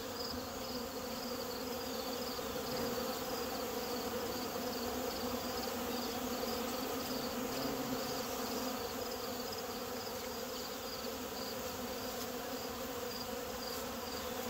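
A dense crowd of honeybees buzzing over open totes of wet wax cappings and comb, robbing out the leftover honey: a steady, even hum. A faint high chirping pulse repeats a couple of times a second above it.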